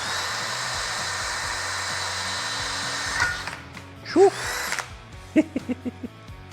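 DeWalt DCD1007 18V brushless hammer drill on speed 2, drilling a 4 mm high-speed steel bit into 1 mm plate. It runs steadily with a high whine for about three and a half seconds, then stops. A loud short sound follows about four seconds in, then a few short plucked notes of background music.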